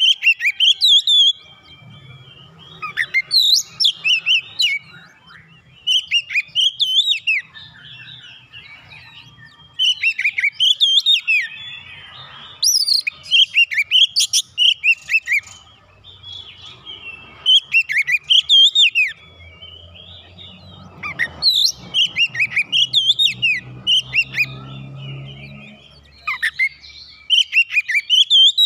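Oriental magpie-robin (kacer) singing loud phrases of rapid, varied whistled notes. About ten phrases follow one another, each one to three seconds long with brief pauses between.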